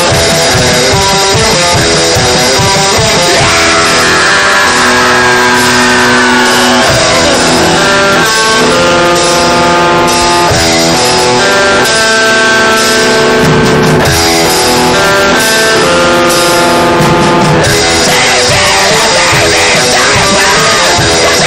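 Raw, improvised metal demo: guitar chords over drums, played loud and heavily distorted. The distortion comes from clipping, with the recording input maxed out rather than from an effect.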